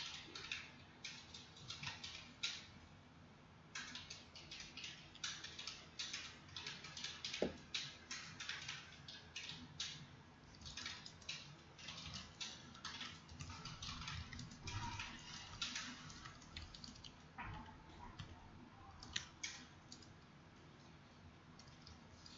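Computer keyboard keys clicking in irregular runs of typing, with brief pauses about three seconds in and near the end.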